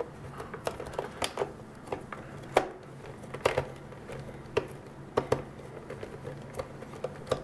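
Screwdriver clicking and tapping on a screw and the plastic back case of a GE portable radio as a screw is worked out: irregular sharp clicks, a few a second at times, the loudest about two and a half seconds in. A faint steady low hum lies under it.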